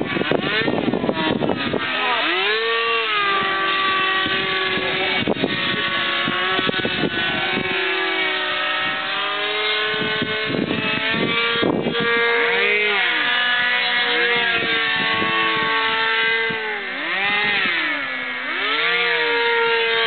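Small propeller motor of a radio-controlled paramotor in flight, a steady drone that from about halfway swoops up and down in pitch again and again as the throttle is worked. Wind buffets the microphone in the first couple of seconds.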